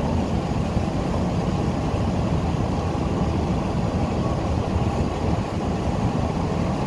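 Steady low rumble of a ferry under way, heard from its open deck.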